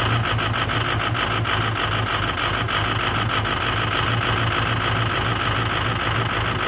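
2006 Ford F-250's 6.0L Power Stroke V8 turbo-diesel idling steadily after a winter cold start, with a light rapid ticking over the first few seconds.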